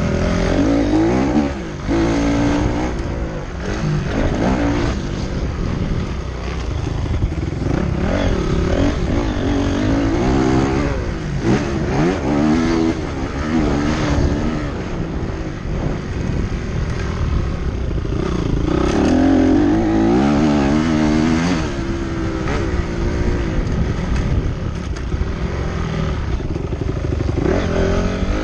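Motocross motorcycle engines racing, revving up and falling back again and again as they shift and brake through the course, at times more than one bike heard at once.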